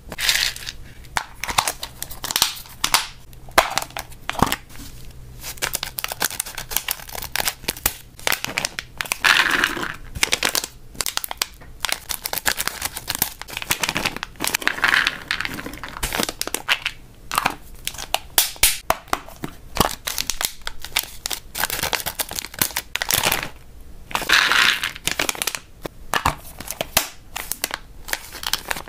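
Plastic snack bags crinkling and crackling in the hands as pet-treat pouches are handled and opened. Dense irregular crackles run throughout, with a few longer swishes.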